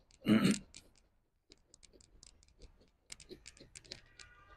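Andis pin brush being drawn through a long-haired dog's double coat: a run of faint, irregular clicks and crackles as the pins pass through the fur. A brief loud whoosh comes about a third of a second in.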